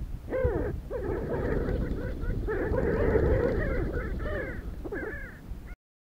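A flock of sandgrouse calling together: many overlapping short calls, each bending up and down in pitch, thickest in the middle, over a low rumble. The sound cuts off suddenly just before the end.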